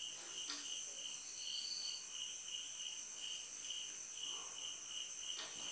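A cricket chirping steadily, about three chirps a second, with faint strokes of a marker on a whiteboard.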